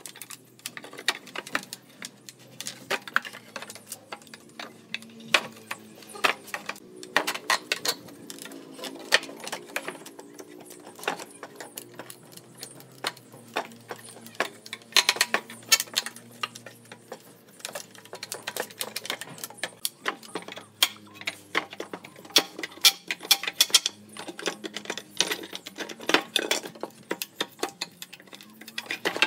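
Wooden pallet deck boards being pried off the stringers with a length of steel rebar used as a lever: repeated sharp cracks, creaks and knocks of wood and metal as the nails pull loose.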